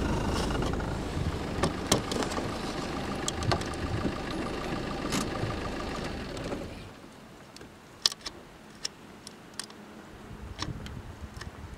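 A vehicle engine running steadily, dropping away about seven seconds in, after which a few sharp clicks and ticks stand out against a quieter background.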